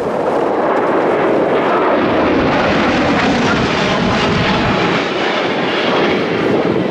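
Military aircraft flying overhead: loud, steady engine noise that starts suddenly and holds.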